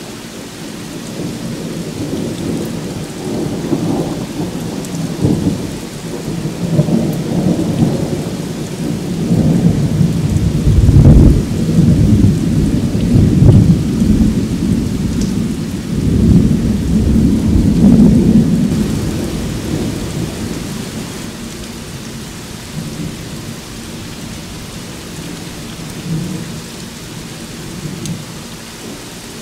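Steady rain falling, with a long rolling thunder rumble that builds, is loudest in the middle and slowly dies away over the last third.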